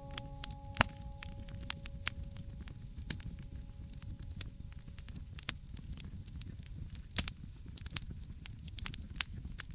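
Wood fire crackling, with irregular sharp pops over a low rumble. A lingering musical tone fades out in the first few seconds.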